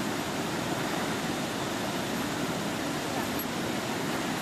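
Steady rushing of a river flowing over rocks, an even, continuous hiss.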